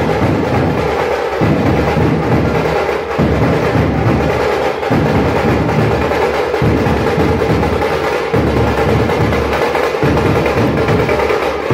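A group of large double-headed dhol drums beaten together in a loud, continuous, driving rhythm.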